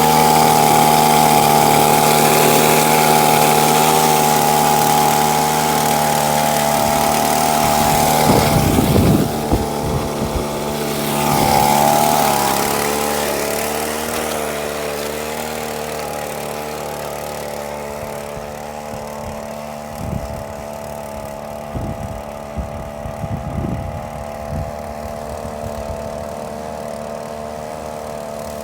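Gas leaf blower engine running steadily with a rushing air blast, used to blow standing water along the ground. About eleven seconds in it revs up briefly, then it grows fainter and the hiss drops away, with a few short knocks near the end.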